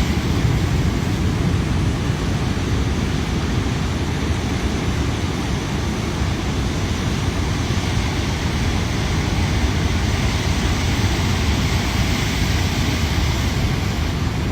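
Heavy surf from a rough storm swell rushing steadily, with a deep rumble underneath.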